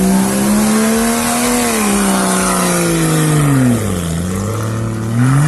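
An off-road 4x4's engine revving hard under load. The revs are held high, drop back to low about four seconds in, and climb again near the end.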